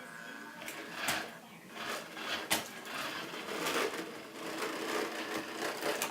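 Small electric motor of a toy RC car running steadily, with several sharp knocks and clatter mixed in.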